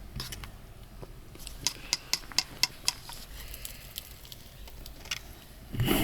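Utensil tapping and scraping against a serving dish of food: a quick run of sharp clicks about one and a half to three seconds in, then a louder dull knock near the end.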